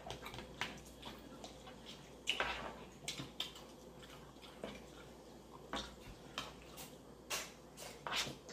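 Quiet eating at the table: a handful of scattered clinks and clicks of metal spoons against bowls.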